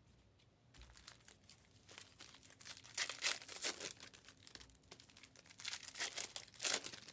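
Plastic-foil trading-card pack wrappers crinkling and being torn open, in irregular rustling bursts that are loudest about three seconds in and again near the end.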